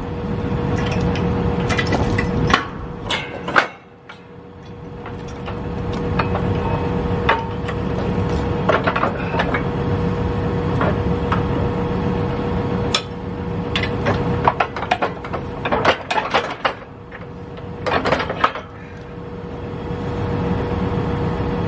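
Tractor engine running steadily, with scattered metallic clinks and knocks of a steel hitch pin and safety chain as an anhydrous tank's tongue is pinned to the toolbar hitch.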